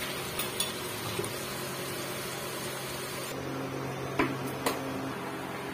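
Okra strips deep-frying in hot oil in a pan, a steady sizzling. About three seconds in the sizzle gives way to a low steady hum with two sharp clicks.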